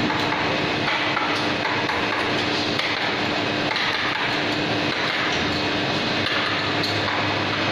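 Steady machine noise from a running vertical injection moulding machine with a rotary table: a constant hum that shifts lower about five seconds in, with a few light metallic clinks.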